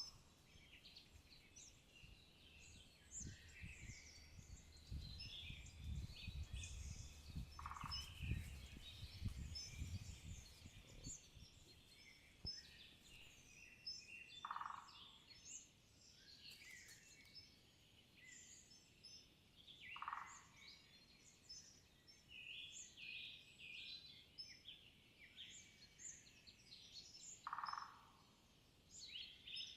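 Spring woodland birdsong: many quick high chirps and trills from several birds, with one lower short call repeated about every six to seven seconds. A low rumble runs between about five and eleven seconds in.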